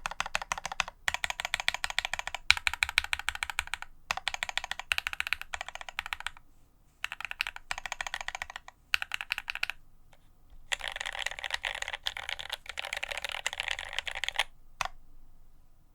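Typing on a Quasi Alice mechanical keyboard with Marshmallow switches and GMK Godspeed ABS keycaps: quick runs of keystrokes with short pauses, then a dense flurry of keys near the end, one last click, and it stops.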